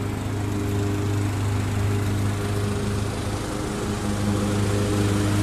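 Small lawn mower engine running steadily: a continuous low drone.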